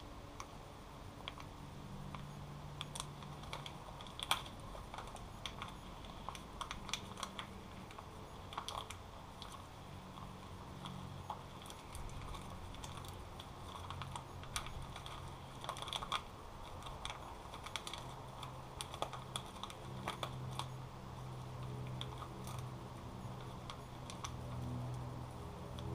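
Light, irregular clicks and rustles of hands handling electrical wire and small barrel crimp connectors, over a faint low hum that comes and goes.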